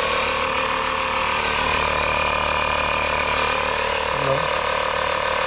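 Small air compressor running steadily, pumping air into a motorcycle inner tube; a constant mechanical rattle and hum with a steady whine.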